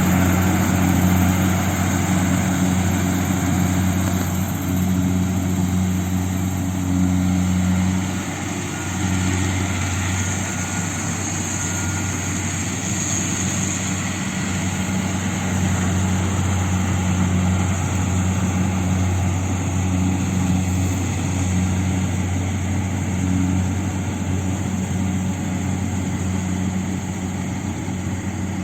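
Kubota combine harvester's diesel engine running steadily with a constant low hum and mechanical noise, easing slightly in loudness about eight seconds in.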